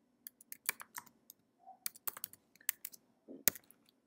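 Typing on a computer keyboard: a quick, irregular run of keystrokes, with one louder key press near the end.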